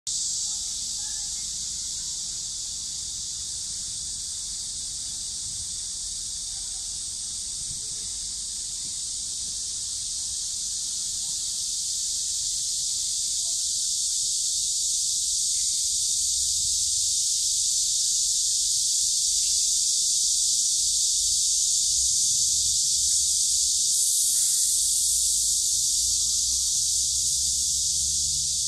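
A steady, high-pitched drone of insects, growing louder about halfway through.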